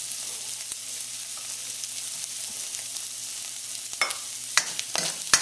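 Sliced onion and shredded salted cod sizzling in hot oil in a wok, a steady frying hiss. Near the end come a few sharp clicks and knocks as a spatula starts working the wok.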